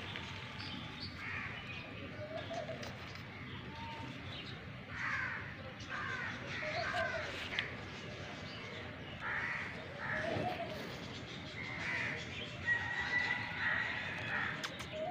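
Birds calling in scattered groups of short calls, with one longer held note near the end.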